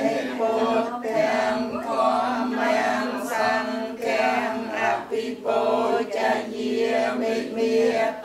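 A congregation of lay worshippers chanting together in unison, paying homage to the Buddha in a Khmer Buddhist devotional chant. The voices hold pitched, drawn-out tones in short phrases with brief breaths between them.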